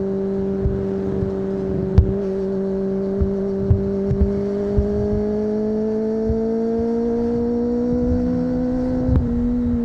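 Kawasaki ZX-25R's 250 cc inline-four running through an Akrapovic exhaust under steady throttle, its pitch holding and then slowly climbing as the bike gathers speed, with a slight drop near the end. Short low thumps of wind buffeting come and go.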